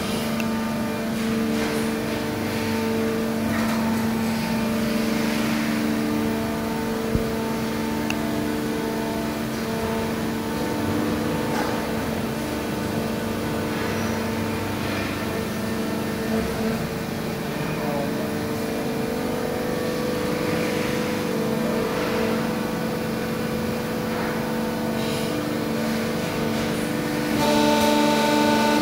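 Van Dorn Demag 600-ton injection moulding machine running: a steady hum with several held tones that drop in and out as the machine cycles. About a second before the end it gets louder and a higher tone joins in.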